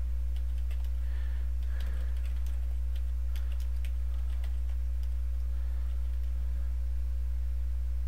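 Computer keyboard being typed on, keystrokes in quick runs that thin out in the second half, over a steady low hum.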